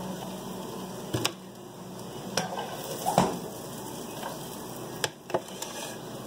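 A metal utensil scraping and clinking against a hot frying pan as fried potato pieces are lifted out onto a plate, with several sharp knocks spread through. Faint steady sizzling of the hot oil runs underneath.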